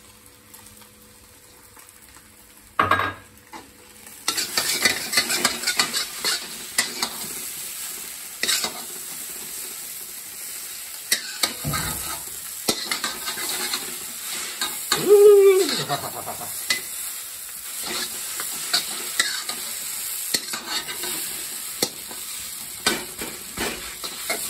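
Noodles being stir-fried in a steel kadai: a sizzle from the hot pan with the metal ladle scraping and clinking against it over and over, starting about four seconds in after a quiet opening with a single knock. A short wavering squeal is heard about midway.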